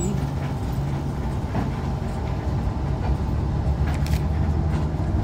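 Moving intercity express bus heard from inside the cabin near the front: a steady low engine drone under road noise.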